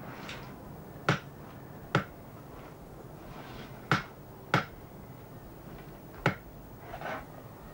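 Butcher's cleaver chopping a pork loin into chops through the rib bones, five sharp strikes onto a wooden chopping board at uneven intervals, with a few lighter knocks between.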